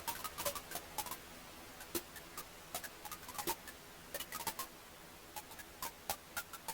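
Wood fire crackling in a fireplace: irregular sharp pops and snaps, several a second, over a faint steady hiss.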